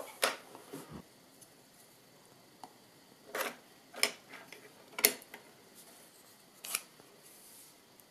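3D-printed PLA drawer-handle parts being handled and snapped together: a handful of sharp plastic clicks and taps at irregular intervals as the grip is folded into its frame on the nail hinge pin, the loudest about five seconds in.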